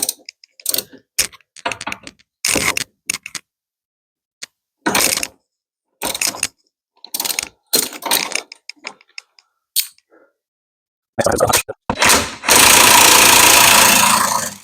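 Ratchet wrench working a rusted bolt on a classic Mini's rear trailing arm bracket, in short clicking bursts, then a continuous run of about two seconds near the end as the bolt comes free.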